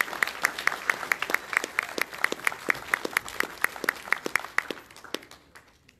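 Congregation applauding, with one clapper close by striking about four or five claps a second above the general clapping. The applause fades out about five seconds in.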